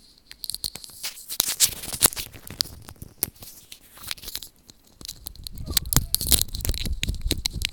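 Thin plastic water bottle crinkling and crackling as it is handled and drunk from: a run of sharp crackles, then denser crackling with a low rumble over the last few seconds.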